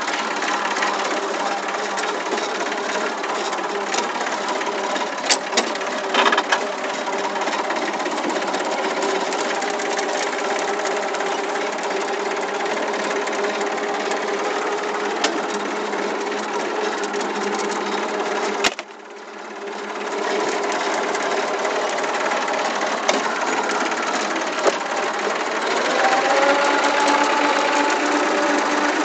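Old farm tractor engine running steadily while driving, heard from the driver's seat. About two-thirds of the way in the sound drops sharply for a moment and builds back up. Near the end the engine speeds up, rising in pitch and getting louder.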